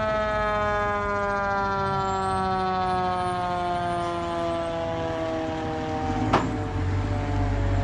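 Fire engine's siren winding down, its tone falling slowly and steadily as it fades. A single sharp knock comes about six seconds in, followed by the truck's low engine rumble growing louder.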